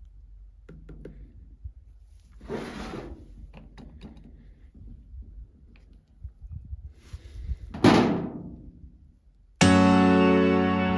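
Scattered knocks, clicks and short rustling clatter of parts and tools being handled, with one louder thunk about eight seconds in. Music with a sustained chord starts suddenly about a second and a half before the end.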